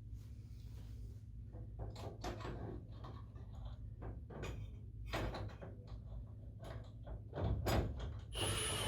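Metal filter clamps and cap-head screws being handled and set into the air cleaner's housing by hand: scattered clicks, clinks and knocks over a steady low hum, with a louder scraping noise near the end.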